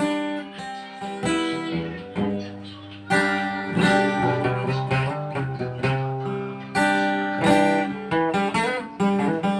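Acoustic guitar playing an instrumental passage: chords struck every second or so and left to ring.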